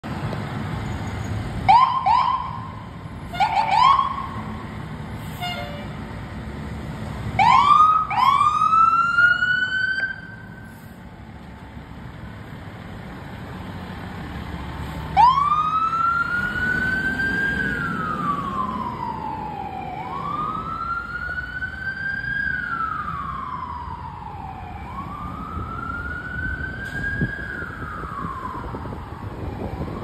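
Fire engine siren. It gives a few short rising whoops near the start and two longer rising sweeps around eight seconds in. From about halfway it settles into a slow wail that rises and falls in pitch about three times, over a low rumble.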